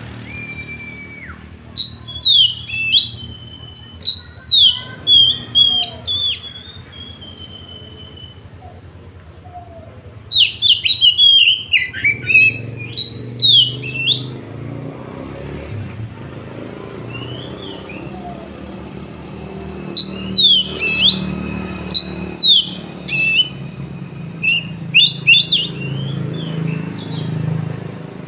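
Oriental magpie-robin (kacer) singing in three bouts of loud, sharp, quickly falling whistled notes, each bout a few seconds long: near the start, in the middle and over the last third. A low rumble of road traffic runs underneath.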